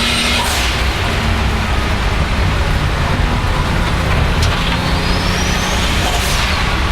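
Turbocharged 3.8-litre M30 straight-six of a 600 hp BMW 535i E34 track car under power. The turbo whistle climbs steadily in pitch as boost builds. Twice, about half a second in and again near the end, the whistle is cut off by the hiss of the blow-off valve venting as the throttle is lifted.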